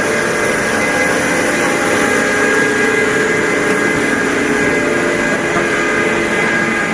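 Mori Seiki Frontier-L CNC lathe running: a steady machine hum with a constant high whine.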